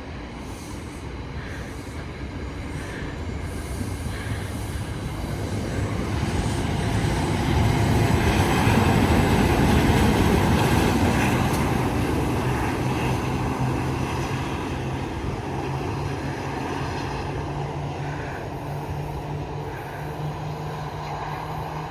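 A passenger train passing, its rumble growing to its loudest about eight to ten seconds in and then slowly fading, with a steady low hum in the later part.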